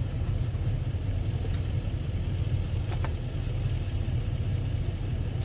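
Vehicle engine idling with a steady low rumble, and two faint clicks about a second and a half apart.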